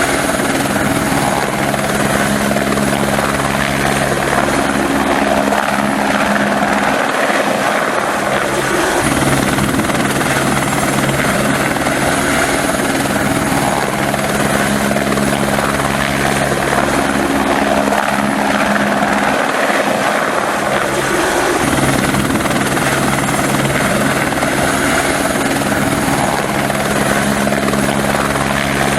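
Helicopter in flight: steady, loud rotor and engine noise with a low hum that briefly drops away twice.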